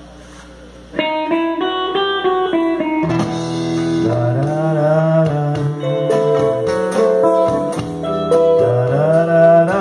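Electric guitar through an amplifier playing a song intro: after a second of amp hum, a picked melody starts, and from about three seconds a low bass line joins under bent notes.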